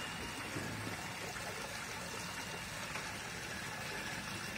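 Water pouring steadily from a spa's spillway into a swimming pool, an even splashing rush.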